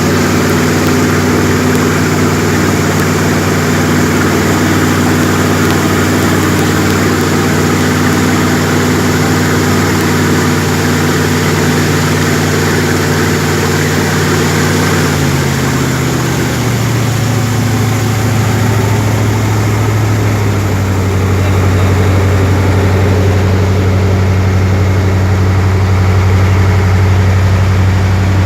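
Jet boat engine running steadily under a rushing hiss. About halfway through, its pitch drops and then settles at a lower, steady note.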